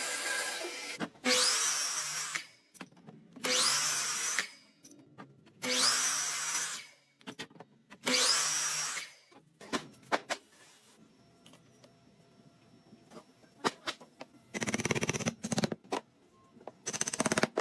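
Handheld electric power drill run in four short bursts about two seconds apart, its motor whining up in pitch at the start of each, with light clicks between. Two rougher, fuller bursts of the tool follow near the end.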